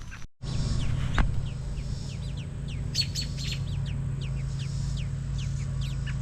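Birds chirping: many short, high, falling chirps, several a second, over a steady low hum, with a single knock about a second in.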